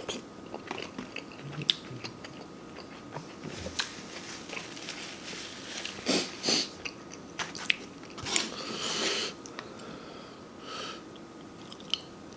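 Close-miked chewing and wet mouth sounds of a person eating, with many small clicks and smacks. A few louder bursts of noise come near the middle.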